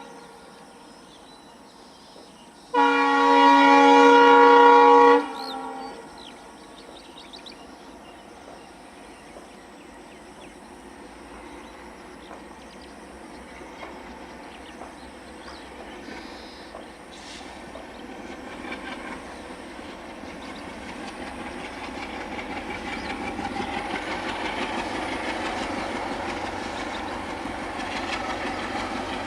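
ALCo WDM3A diesel locomotive sounding its horn in one long blast of about two and a half seconds. The approaching locomotive and train then grow steadily louder, engine and wheel noise building as they near.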